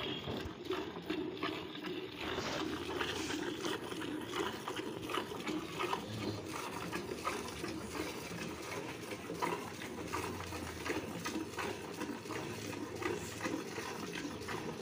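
A cow being milked by hand: rhythmic squirts of milk from the teats hitting the milk in a pail.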